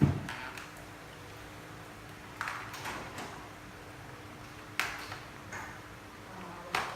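A handful of short, sharp clicks or taps, spaced a second or two apart, over a faint steady hum.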